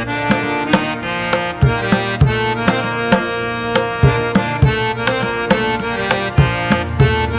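Background music: drum strikes, a couple a second, over held melodic notes.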